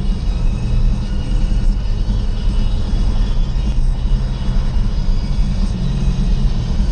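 Steady low road rumble heard inside a car's cabin while cruising on a freeway at about 110 km/h.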